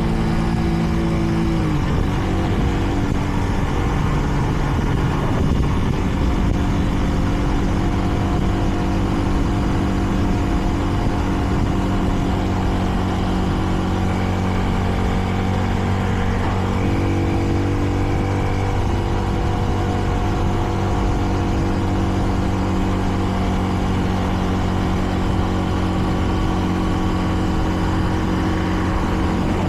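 Kreidler Dice CR 125's 125 cc single-cylinder engine running under way at a steady, moderate pace, with wind and road noise. The engine pitch drops about two seconds in and rises again for a couple of seconds about halfway through.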